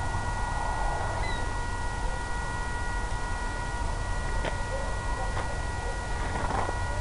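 Steady electronic hiss and low hum with several thin, high steady tones, broken only by a few faint ticks in the second half.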